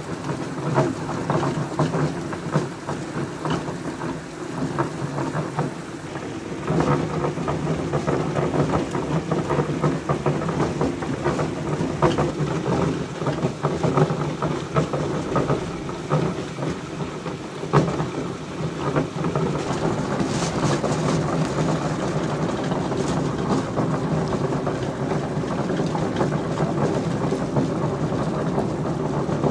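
Hollander beater running: its bladed roll churning a slurry of cotton rag and harakeke pulp round the tub, a steady machine hum under a rapid, irregular thumping as the rag pieces go under the roll. It grows louder about six seconds in.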